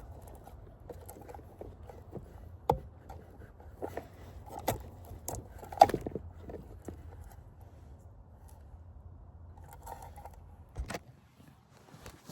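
Scattered clicks, knocks and rattles of wiring connectors and a circuit board being handled and unclipped, with the sharpest knock about six seconds in. A low steady hum stops abruptly after a knock near the end.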